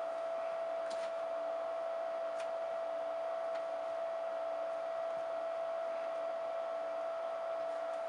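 Room tone: a steady mid-pitched electrical hum over faint hiss, with a couple of faint clicks.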